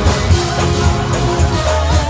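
Live church band music, with drums and a heavy bass under sustained keyboard-like notes, playing a steady beat.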